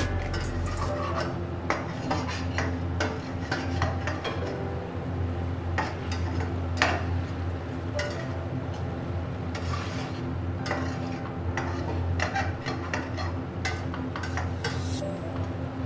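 A slotted metal spatula scraping, scooping and tapping against a stainless steel pan as it stir-fries minced meat, in irregular clinks and scrapes.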